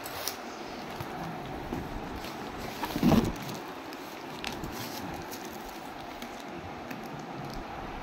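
A knife slitting the packing tape along a cardboard box's seam, with scraping and light rustling over a steady background hiss. One short, louder sound comes about three seconds in.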